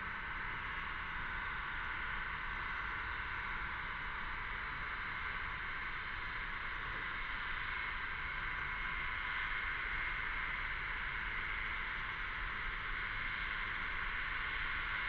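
Chorus of cicadas singing as a steady, continuous high drone. It swells a little about two thirds of the way through.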